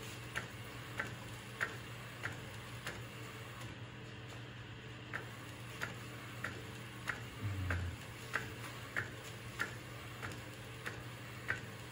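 Epson P405 DTF printer printing onto film: the print-head carriage sweeps back and forth, with a regular click roughly every two-thirds of a second over a steady low hum.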